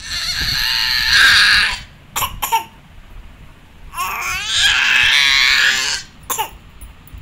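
Baby boy screaming: two long, high-pitched, wavering shrieks, the second starting about four seconds in, with a few short yelps between them.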